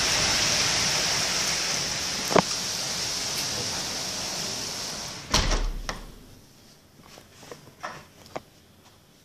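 Heavy thunderstorm rain pours steadily, with a single sharp click a couple of seconds in. About five seconds in, a door shuts with a thump, and the rain drops to a faint background with a few small knocks.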